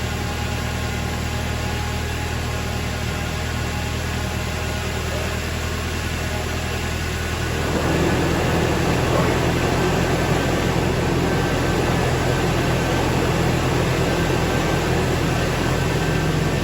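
2001 Toyota Tacoma engine idling steadily with no misfire, fresh after new spark plugs and an air filter. About halfway through the sound gets louder and rougher.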